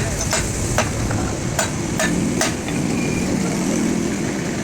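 Hammer striking metal: about six sharp blows at uneven intervals over the first two and a half seconds, over a steady low rumble.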